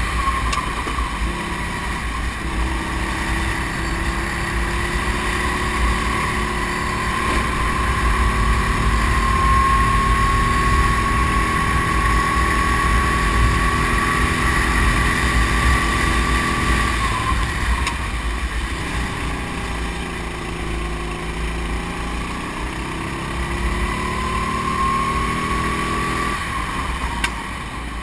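Go-kart engine at speed, heard from the onboard camera. Its pitch climbs slowly along the straight, drops about two-thirds of the way through as the throttle comes off, then climbs again and drops near the end. Wind buffets the microphone throughout.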